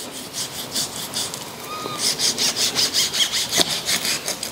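A kitchen knife sawing back and forth through raw pork belly on a wooden cutting board, with quick, even rasping strokes that grow louder about two seconds in. The slab is being slit lengthwise partway through, about two-thirds of its depth.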